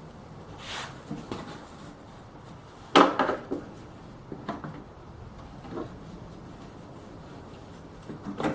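A few light wooden knocks and clatters from thin plywood parts of a dust hood being handled, with one sharp, louder knock about three seconds in.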